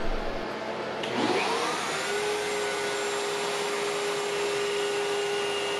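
Router in a Bosch RA1171 benchtop router table, fitted with a Whiteside spiral straight bit, switched on about a second in: its whine glides up as it spins to full speed, then holds steady at a high rpm with no wood being cut yet. A shop vacuum on the table's dust port runs with it.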